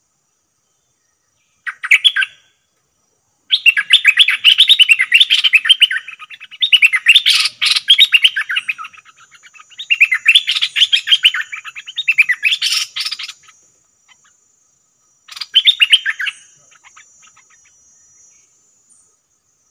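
Nok dok taeng songbird singing rapid, warbling phrases in five loud bursts, the longest lasting two to three seconds, with short pauses between them.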